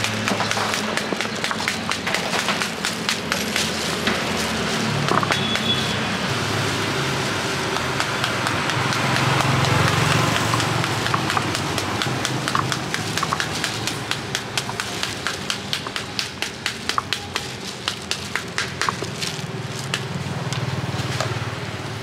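Wooden stick beating the rind of a halved pomegranate held over a plastic basin, knocking the seeds loose. It makes a quick, even run of knocks, several a second, over a steady background hum.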